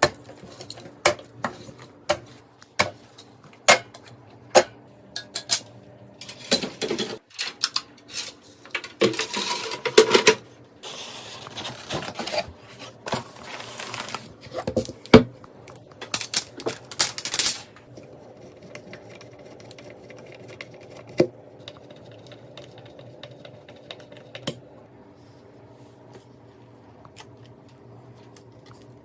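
Computer parts being handled during assembly: a run of sharp clicks and knocks, with two stretches of rubbing and scraping in the first half. After that come only occasional clicks over a faint steady hum.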